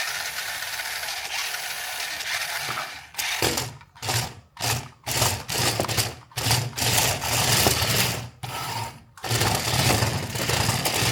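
Toy RC car's small electric motor and plastic gears whirring: steady for about three seconds, then switched on and off in a quick series of short bursts.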